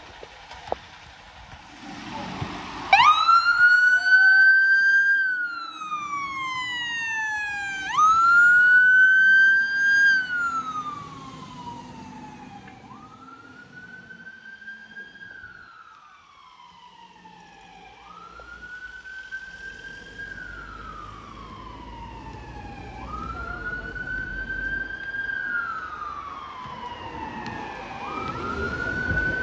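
London Fire Brigade fire rescue unit's siren on a slow wail as it turns out to a call. Each cycle climbs quickly and falls slowly, repeating about every five seconds. It starts about three seconds in, is loudest at first, then fades as the appliance drives away.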